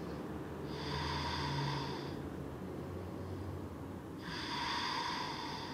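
A person breathing slowly and audibly in deliberate yoga breathing: two long breaths, each about a second and a half, the second starting about four seconds in.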